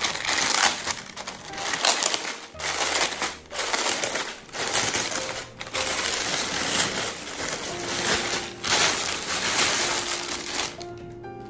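Plastic packaging crinkling and rustling in repeated bursts as a parcel is unwrapped by hand and a cotton sweatshirt is pulled out of its clear plastic bag. Music comes in near the end.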